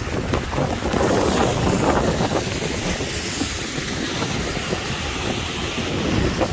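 Strong wind gusting across the microphone in a tropical rainstorm, over the hiss of heavy rain and the wash of surf.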